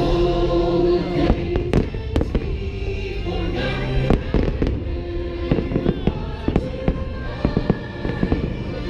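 Aerial firework shells bursting in quick succession, sharp bangs coming faster in the second half, over the show's music from loudspeakers.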